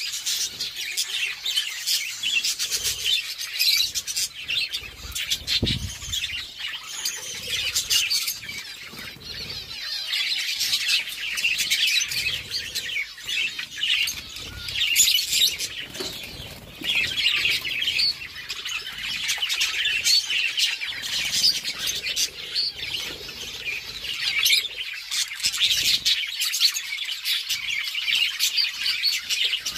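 A flock of budgerigars chirping and chattering continuously, many overlapping high chirps, with frequent short clicks mixed in.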